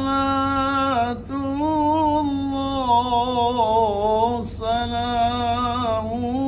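A man singing an Arabic shalawat unaccompanied in long melismatic phrases: held notes with ornamental wavering, broken by quick breaths about a second in and again near the middle.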